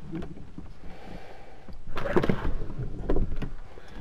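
Rustling and handling noise as the fabric curtains over a camper van's door are pushed aside, with a few sharp knocks about two seconds in and again a second later.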